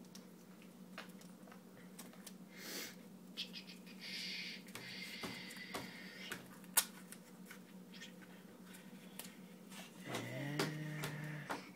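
Duct tape being pulled off the roll, a ripping noise lasting a couple of seconds about four seconds in, among light clicks and taps of handling the tape and egg-carton cup. Near the end comes a brief low pitched sound.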